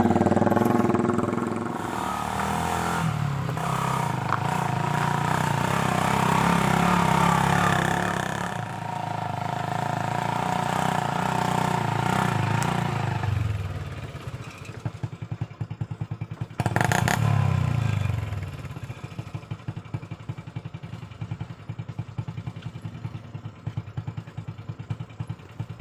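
Honda Revo 110cc single-cylinder motorcycle engine driving a homemade mini truck, working hard with its pitch rising and falling for the first dozen seconds. It eases off, revs briefly about 17 s in, then settles into a steady fast putter at idle.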